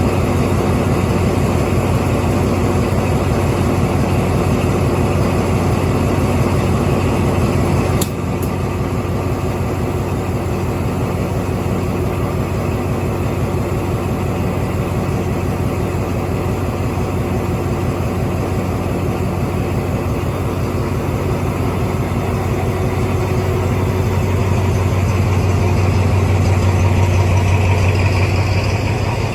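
Diesel train engine running steadily with a deep hum, swelling a little near the end. A brief sharp click comes about eight seconds in.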